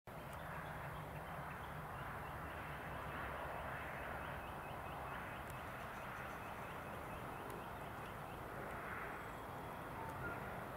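Quiet rural outdoor background with birds calling, over a low steady rumble. A fast run of faint ticking goes on through the first part and stops after about seven seconds.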